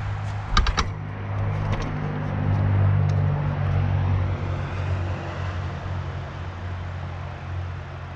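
An engine idling steadily, its hum swelling for a couple of seconds and then easing off, with a few sharp clicks about half a second in.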